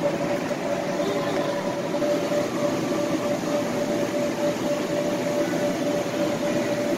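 Electric air blowers keeping inflatable bounce houses and slides inflated: a steady rushing drone with a constant whine running through it.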